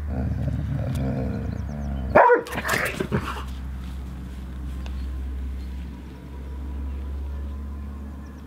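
A dog barking: a short burst of a few barks about two seconds in, over a steady low rumble.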